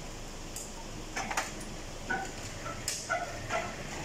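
Scattered sharp clicks and knocks of hand-tool work on a car's front end, about half a dozen over a steady background noise.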